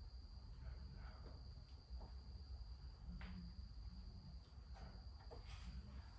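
Faint garage room tone: a steady high-pitched tone over a low hum, with a few faint taps and rustles from hands working on the dirt bike's plastic bodywork.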